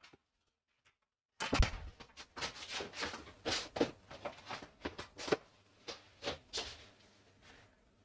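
A quick, irregular run of light knocks and clatters that starts after about a second and a half of silence and thins out near the end.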